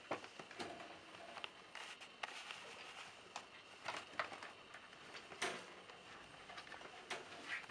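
Faint rustling of a blanket and scattered small clicks and scuffs as a cat rolls and squirms on it, the sharpest about five and a half seconds in, over a thin steady high hum.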